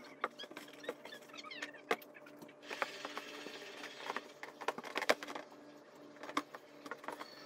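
Hands handling objects and wrapping: scattered light clicks, taps and knocks with a short burst of rustling about three seconds in, over a faint steady hum.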